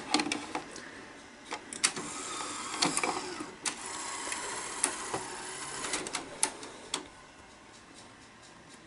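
Sony SL-2300 Betamax VCR taking in a cassette. The cassette holder clicks down, then the loading mechanism whirs for about five seconds with scattered sharp clicks, and settles near the end.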